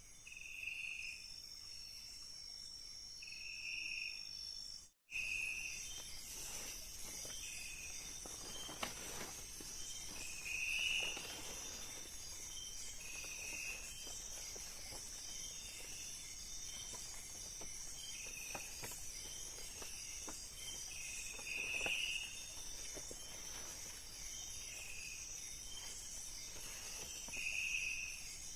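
Night-time tropical forest insect chorus, a steady high-pitched trilling, with a short call repeating every two to three seconds. The sound cuts out completely for a moment about five seconds in.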